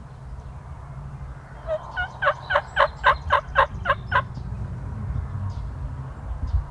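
Turkey calling: a loud series of about nine short notes, about four a second, lasting roughly two and a half seconds.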